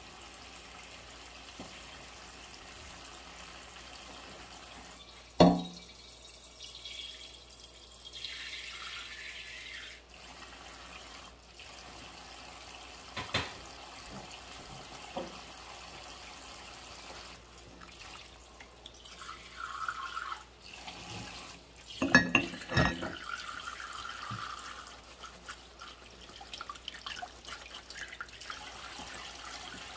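Dishes being washed by hand in a stainless steel sink of soapy water: water dripping and sloshing, with one sharp clink of crockery about five seconds in and a cluster of clinks a little after twenty seconds as a ceramic mug is set down among the dishes. Short squeaks come in between, around the clinks.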